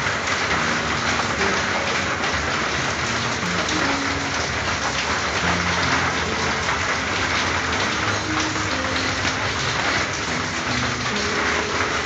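Steady rain falling on a corrugated tin roof: a dense, even hiss of drops with no let-up.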